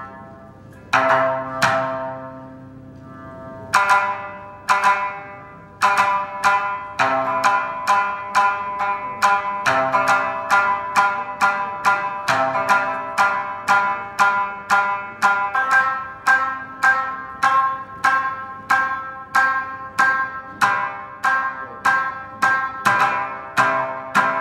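Tsugaru shamisen struck with a bachi plectrum: a few spaced, ringing notes, then from about six seconds in a steady run of plucked notes, about two a second.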